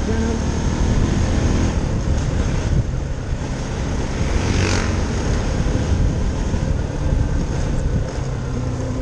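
Motorcycle engine running steadily as the bike rides slowly along a street, a low drone with wind noise on the microphone. A brief swish rises and falls about halfway through.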